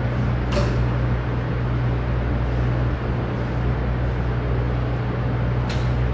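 Steady machine hum, a low drone under an even hiss, with a brief click about half a second in and another near the end.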